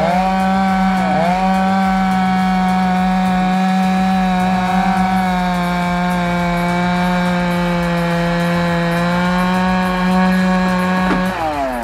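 Chainsaw running at high revs through a cut in a large tree, its pitch dipping briefly about a second in. Near the end the throttle is released and the engine winds down.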